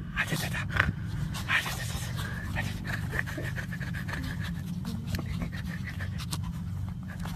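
Shih Tzu panting while its belly is rubbed, with scattered short clicks and rustles through it.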